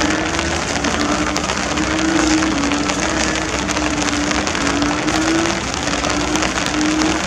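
Heavy, torrential rain pouring steadily, a dense hiss with many small drop clicks. Under it runs a low tone that wavers up and down in pitch in short, overlapping stretches of about half a second each.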